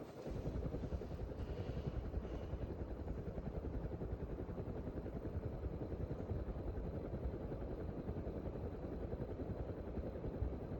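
Ceiling fan running: a steady rushing hum, heaviest in the low end, that cuts off suddenly near the end.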